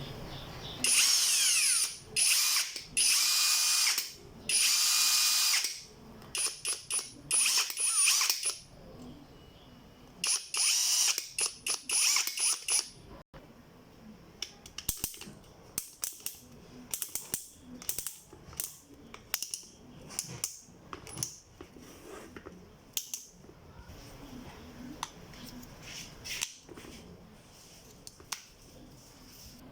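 SUMASU YMS6013B brushless cordless drill run in bursts on the trigger: three runs of about a second each in the first five seconds, then shorter pulses. From about halfway there is a string of brief blips and clicks.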